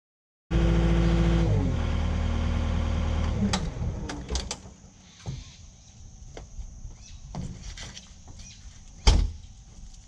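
Cat 259D compact track loader's diesel engine running, dropping in pitch twice as it is throttled down, then stopping about three and a half seconds in. Scattered clicks and knocks follow, with one loud thump near the end.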